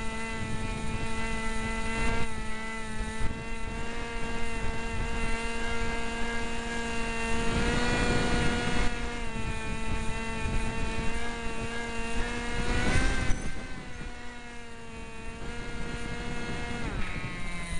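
Cox SkyCruiser model plane's electric motor and propeller whining at a steady pitch near full power, recorded from a keychain camera on board, with wind buffeting the microphone. The pitch wavers about 13 seconds in and drops near the end.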